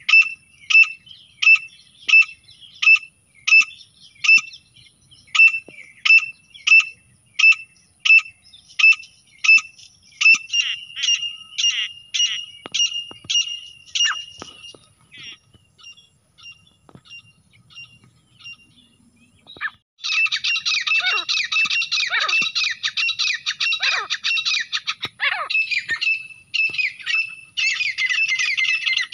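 Grey francolins calling: a steady series of sharp, high repeated notes, about one and a half a second, that turns into denser chattering and fades out about halfway through. After a short lull, a dense, continuous chorus of harsh calls starts about twenty seconds in.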